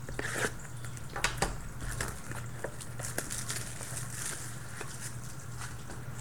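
Wrapper of a trading-card pack crinkling and tearing as it is opened by hand, with scattered sharp crackles and clicks.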